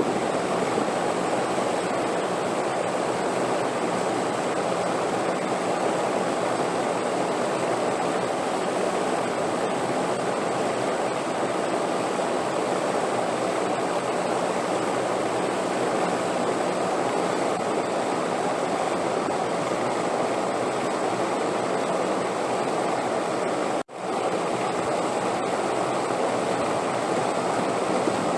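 Steady rushing wind noise, even and unbroken, that drops out for an instant about four seconds before the end.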